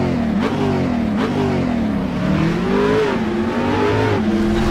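Car engine revving as a sound effect, its pitch rising and falling several times before holding steadier near the end.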